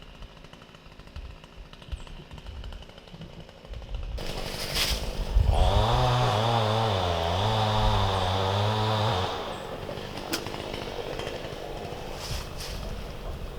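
A small engine running in the background. About five seconds in it speeds up and runs louder for about four seconds, its pitch wavering up and down, then drops back to a quieter, steady run. A few sharp clicks sound over it.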